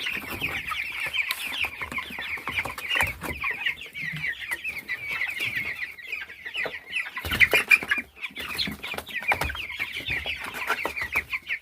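A crowded flock of nearly three-week-old chicks peeping nonstop, many short high cheeps overlapping, with scattered knocks and scuffs, the loudest a little after the middle.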